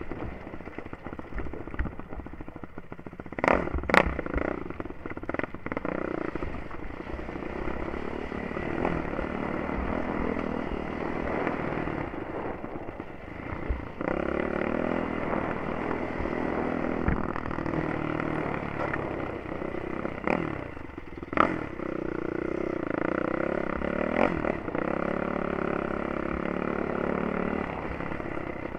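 Yamaha YFZ 450 quad's single-cylinder four-stroke engine running under changing throttle while riding a rough trail, with clatter and a few sharp knocks from the machine over rocks and bumps, the loudest a few seconds in and again about two-thirds through.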